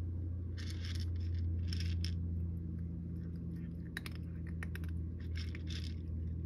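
A cat crunching dry kibble from a wooden dish: irregular crunches, with a run of sharper clicks about four to six seconds in, over a steady low hum.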